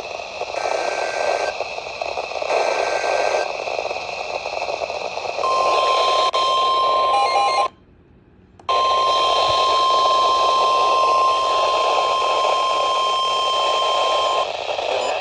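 NOAA Weather Radio warning alert received through heavy radio static: two short bursts of the digital SAME header data, then the steady warning alarm tone (1050 Hz), broken by about a second of silence partway through and stopping shortly before the end.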